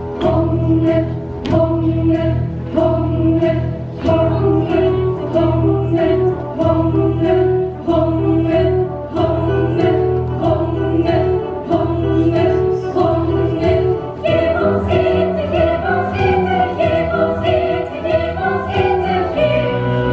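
Ensemble choir singing a musical-theatre song over instrumental accompaniment with a steady beat and a sustained bass line.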